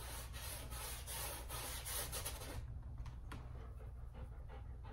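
Paintbrush rubbing paint onto a canvas in quick, scratchy strokes, stopping about halfway through.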